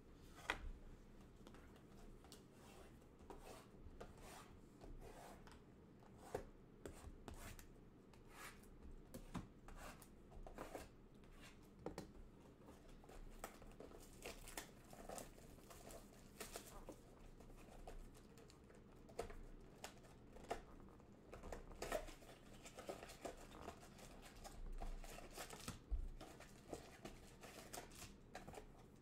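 Football trading card packs being torn open by hand and the cards handled: scattered quiet rips, crinkles and clicks.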